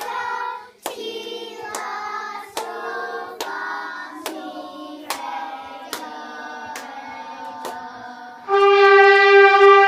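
Singing with a sharp clap on each beat, a little over one a second, the melody moving from note to note. About eight and a half seconds in, a wind instrument starts one loud held note.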